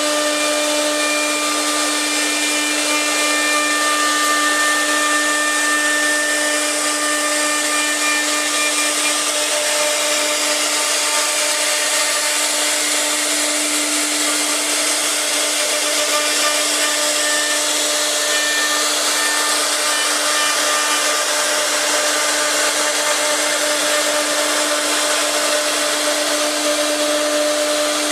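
CC-B1325B CNC router's spindle running and carving wood: a constant whine over a steady hiss of cutting, with no breaks.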